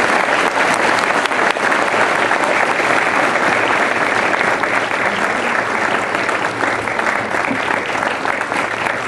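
Audience applauding, many people clapping together in a dense, steady stream of claps that eases off slightly toward the end.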